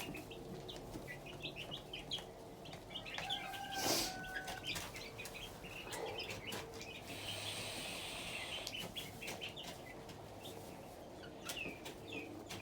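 Chicks peeping continually with many short, high chirps. There is a sharp knock about four seconds in, and a brief rustle a few seconds later.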